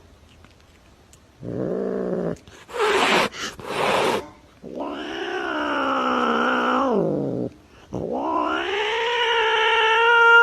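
A domestic cat yowling. A short cry and two short noisy bursts come first, then two long drawn-out yowls: the first falls in pitch at its end, and the second is still going at the end.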